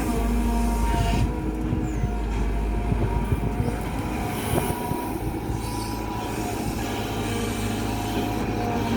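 Diesel engine of a Kobelco Yutani SK120 excavator running with a steady low drone and a hydraulic whine, with irregular knocks and rattles in the first few seconds.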